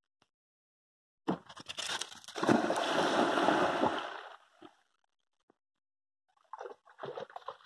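A dog splashing into lake water and swimming out, water sloshing for about three seconds and then fading. A few short crunches near the end.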